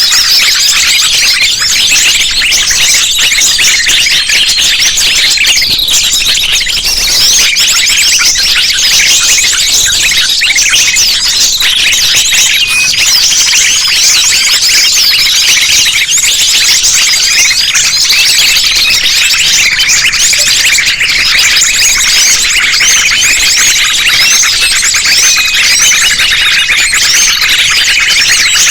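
A dense, continuous chorus of small songbirds layered together as a bird-lure mix, sunbirds among them: many overlapping high, rapid chirps and thin trills at once.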